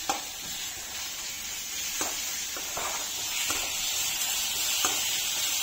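Onions, herbs and green chillies with ginger-garlic paste and turmeric frying in oil in a pan on medium flame, sizzling steadily, with a few light clicks of a spoon stirring against the pan. The sizzle grows stronger about three seconds in.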